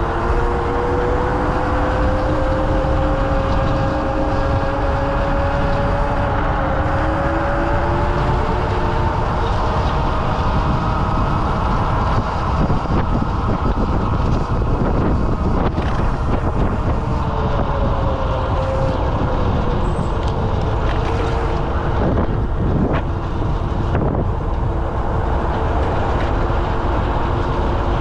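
Electric scooter motor whining as it rides, its pitch climbing slowly as the scooter speeds up and sinking again past the middle, under steady heavy wind rush on the handlebar-mounted camera's microphone.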